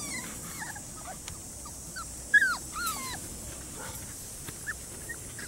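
A litter of young nursing-age puppies whimpering and whining in many short, high cries, the loudest a falling whine about two and a half seconds in. They are hungry pups crying for their feed of puppy formula.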